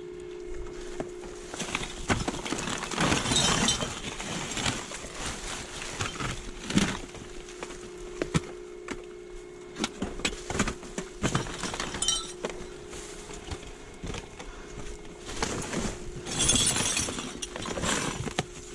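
Hands rummaging through trash in a dumpster: plastic bags and packaging crinkling and rustling, with clicks and clinks of plastic items knocking together. The crinkling is loudest about three seconds in and again near the end. A steady hum runs underneath.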